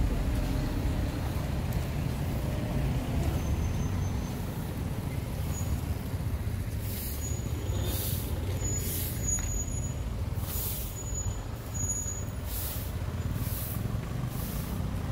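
Road traffic with a steady low rumble. From about halfway through, short hissing sounds come roughly once a second.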